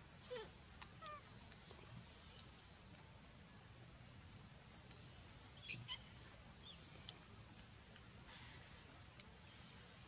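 Faint, steady, high-pitched chorus of insects, with two short, sharp chirps a little past the middle.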